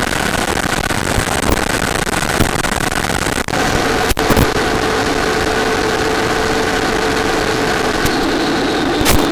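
Onboard audio from a radio-controlled model jet in flight: a steady rush of air with a faint motor whine. A few sharp clicks and crackles cut in, around the middle and near the end.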